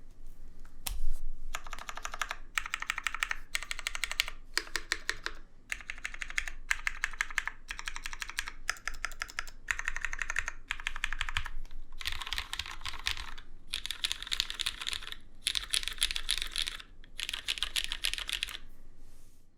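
Fast typing on a custom 60% mechanical keyboard with lubed Cherry MX Brown switches, an aluminium plate and GMK keycaps: runs of quick keystrokes broken by short pauses, with one louder stroke about a second in.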